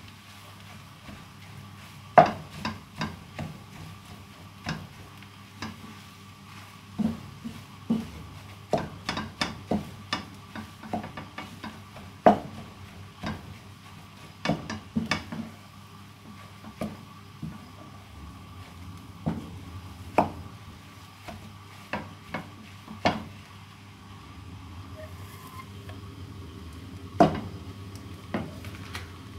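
Wooden spatula stirring food in a frying pan, knocking and scraping against the pan in irregular clicks, over a steady faint hum.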